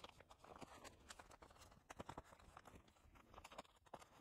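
Faint, scattered clicks and light rustling of photocards and their plastic sleeves being handled and slotted into binder pages.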